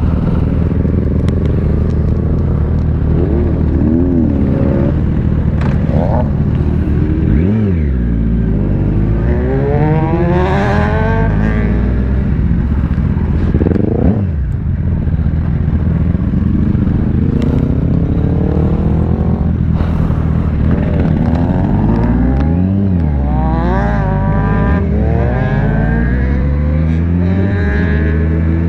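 Yamaha sport motorcycle's engine heard from the rider's seat, pulling away and accelerating through the gears. The engine note rises with the revs and drops back at each gear change or when easing off, several times over.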